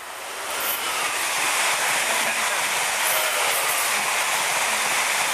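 Passenger train passing close by at speed: a steady rush of wheel and air noise that builds over about the first second and then holds.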